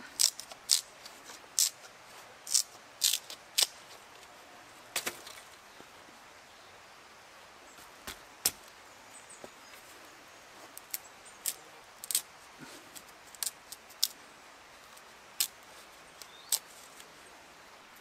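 Knife splitting hazel and willow sticks lengthwise into thatching spars: irregular sharp cracks and clicks of the wood parting, thickest in the first few seconds, then more scattered.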